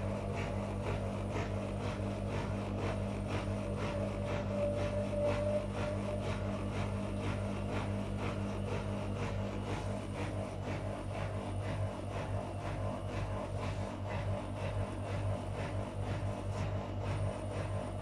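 Whirlpool FL 5065 front-loading washing machine in its 600 rpm spin: a steady motor hum with a regular pulsing from the turning drum. A higher whine comes and goes in the first six seconds.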